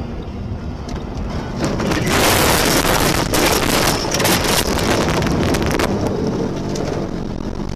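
Car road noise on a snowy road, then about two seconds in a loud rush of snow pelting the windshield and body, dense hissing with many sharp crackles, which lasts about four seconds and then eases back to road noise.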